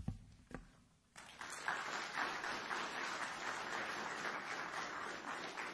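Audience applauding, starting about a second in after a couple of soft low thumps.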